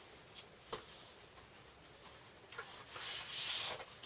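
Handling of a cardboard LP sleeve: a couple of light taps early, then a longer dry rubbing swish of card or paper sliding a little under three seconds in.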